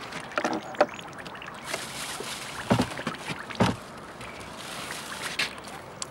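Water lapping and sloshing against a small wooden boat, with two thumps about a second apart near the middle.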